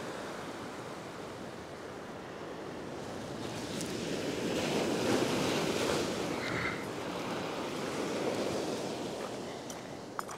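Ocean surf breaking and washing over a rock shelf, a steady rush that swells louder around the middle and then eases.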